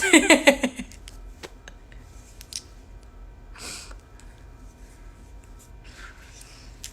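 A short, pulsing burst of a woman's voice at the start, then a quiet room with a few faint clicks and soft breaths.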